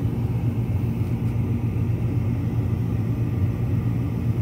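A steady low hum with a faint rumbling noise under it, holding even throughout.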